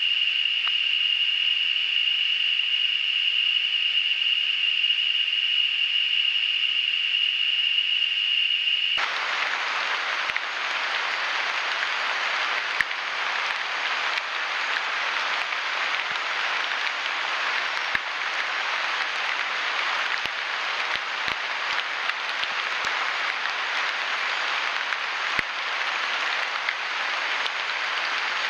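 Rainforest ambience from trail-camera microphones. For about the first nine seconds there is a single steady high-pitched buzz, like a daytime insect call. It switches abruptly to a dense, even hiss with a few faint clicks scattered through it.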